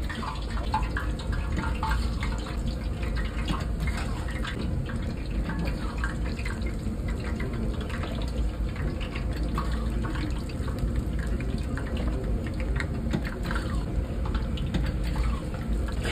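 Medu vada batter rings deep-frying in a wide pan of hot oil: a steady sizzle full of quick crackles and pops, over a steady low hum.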